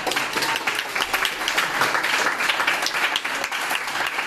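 Audience applauding: many hands clapping densely.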